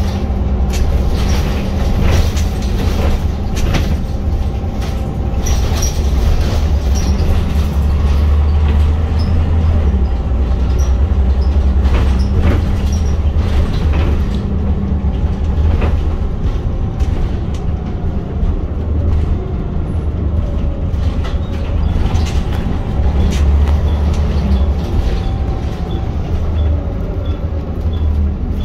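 Scania L94UB single-deck bus with Wright Solar body, heard from inside the saloon while under way. The diesel engine and road noise make a steady low drone that swells and eases, with frequent short rattles from the body and fittings.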